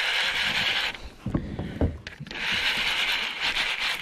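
Baitcasting reel running: a steady rasping whirr, a few low knocks a little over a second in, then the whirr again, in line with a cast of a flutter spoon and the start of the retrieve.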